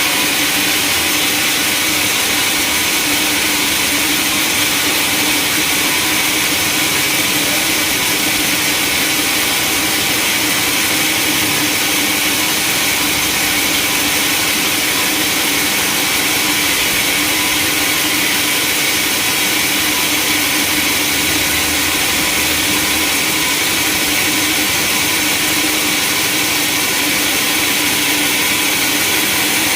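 Sawmill machinery running steadily: a loud, even mechanical noise with a constant hum that holds the same pitch throughout.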